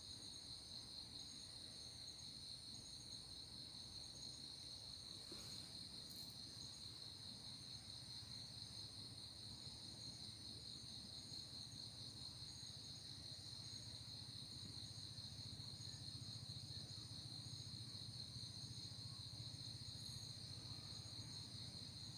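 Faint, steady chorus of night insects trilling continuously at a high pitch, with a soft low rumble underneath.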